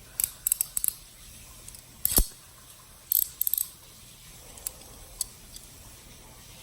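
Steel handcuffs clicking and rattling in short quick clusters as they are worked at, with one louder knock about two seconds in and a few single clicks after.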